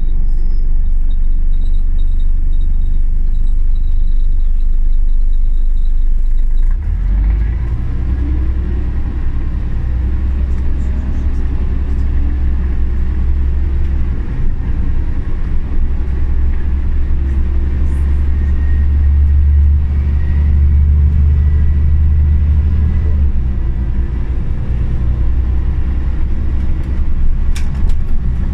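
Scania OmniCity CN94UB city bus engine heard from inside the cabin, running with a steady low rumble. About seven seconds in, the bus pulls away and the rumble grows stronger under load, easing briefly twice.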